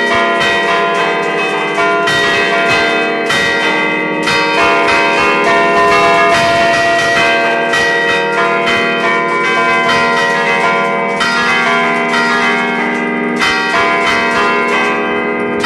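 Church bells cast by Achille Mazzola in 1951, a five-bell set tuned to a flat E-flat, ringing close up in the belfry. Strokes come every second or so, each one's long ring overlapping the next.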